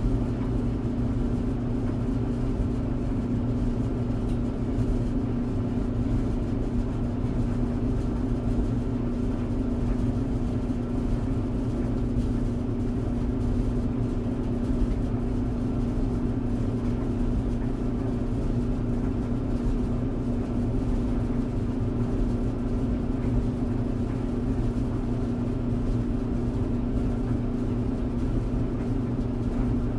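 Tumble clothes dryer running: a steady motor hum with a low rumble from the turning drum, even throughout.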